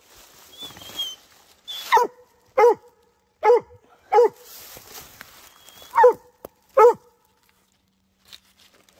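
Mountain cur tree-barking at a treed raccoon: six short chop barks, spaced under a second apart, between about two and seven seconds in. Dry leaves rustle underfoot between the barks.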